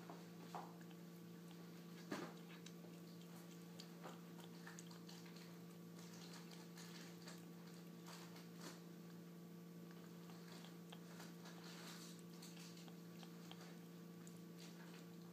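A cat licking yogurt off a metal spoon: faint, scattered wet tongue clicks and smacks, the clearest about two seconds in, over a steady low hum.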